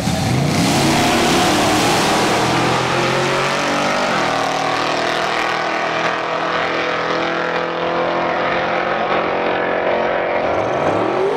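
Drag-racing van launching at full throttle and pulling away down the strip, its engine note steady and dense as the high end thins out with distance. Near the end a second engine note starts rising.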